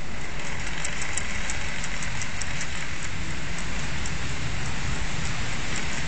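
Typhoon gale wind rushing at a window: a steady noisy rush, with a low rumble of wind buffeting the microphone and a few faint high ticks.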